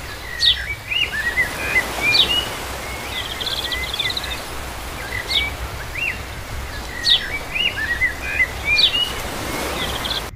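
Birds singing: a sharp high call repeating about every one and a half to two seconds, with short whistled notes between and a brief buzzy trill a few seconds in, over a steady low rumble.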